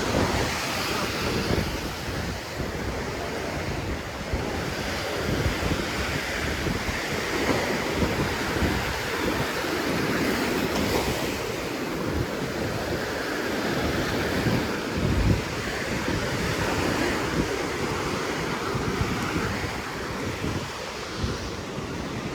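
Sea waves breaking and washing on a sandy beach in slow swells, with gusts of wind rumbling on the microphone.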